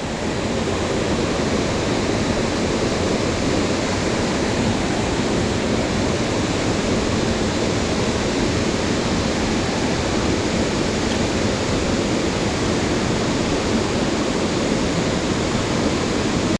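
Mountain stream water rushing, a steady, unbroken wash of running water.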